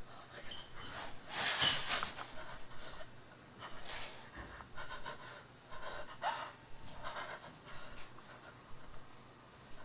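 A young woman breathing hard in a series of breathy pants and gasps, the frightened breathing of someone hiding.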